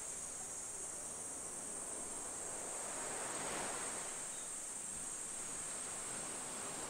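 Insects, likely crickets, chirring in a steady high-pitched drone over a soft outdoor hiss that swells slightly midway.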